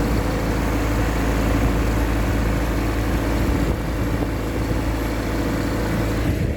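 Ford 2.3-litre four-cylinder MerCruiser boat engine running steadily under way while it overheats, its temperature climbing toward the top of the gauge.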